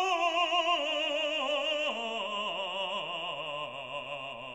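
Background music: an operatic voice singing with a wide vibrato, the melody stepping down in pitch, with a drop to a lower note about two seconds in.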